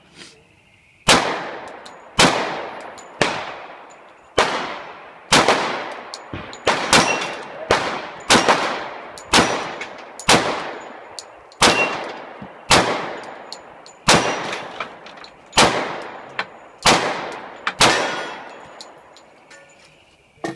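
Pistol fired in a long, steady string of shots, about one a second and a few closer together. Each shot has a tail that trails off.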